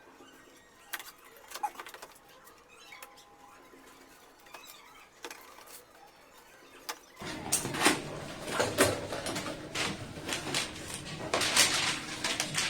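Cardboard box and packaging being opened and handled. At first there are only faint scattered clicks; from about seven seconds in comes a busy run of rustling, scraping and sharp knocks.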